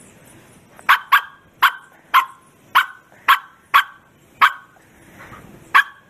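Bearded collie barking hard, nine sharp barks spread over about five seconds, the first two in quick succession.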